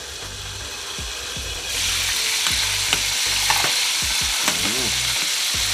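Chicken deep-frying in hot oil: a steady sizzle that grows much louder about two seconds in.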